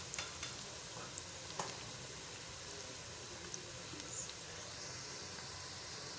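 Sliced bitter gourd (karela) frying in ghee as it browns: a steady, soft sizzle with a few small pops and crackles.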